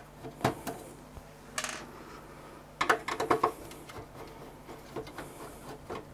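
Sharp metal clicks and rattles of a screwdriver working at the sheet-metal hard drive cage of an open PC tower case, with a brief scrape under two seconds in and a quick run of the loudest clicks about three seconds in.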